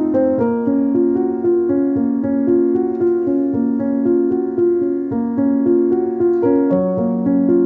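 Background keyboard music: a steady run of piano notes, changing about twice a second.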